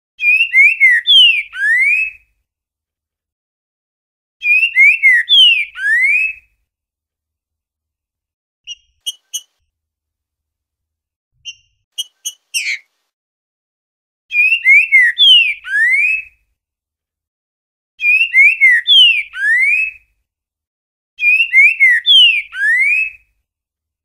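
Green-winged saltator (trinca-ferro) singing the boiadeiro song type: five loud whistled phrases of about two seconds each, each a quick run of slurred falling whistles ending in a rising note. A few short high chips fall in the long gap between the second and third phrases.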